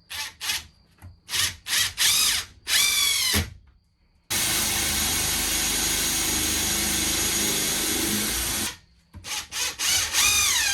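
Power drill run in a string of short trigger pulls, then held for a steady run of about four seconds, then pulsed again. The motor's pitch falls each time it spins down.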